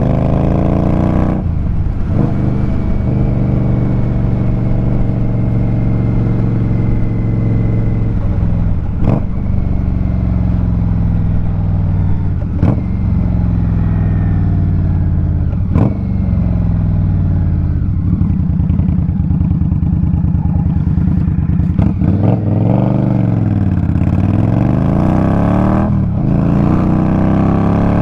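Indian Scout Rogue's V-twin engine through GP Shorty short exhaust pipes, riding under acceleration. The engine note climbs and drops sharply at each of several gear shifts, then falls and rises again near the end.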